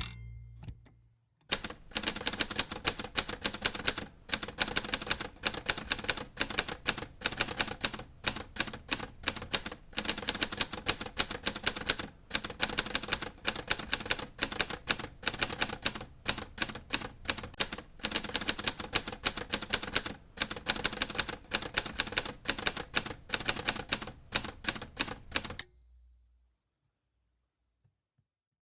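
Typewriter keys typing in a fast, steady run of clacks, starting about a second and a half in, after a short loud clatter. Near the end the typing stops, and the end-of-line bell rings once and fades out.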